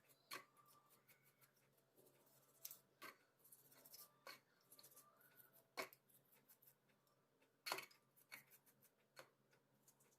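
Faint, scattered clicks and light taps of small parts and tools being handled while working on a cordless impact driver, the sharpest about six and eight seconds in, over a faint low hum.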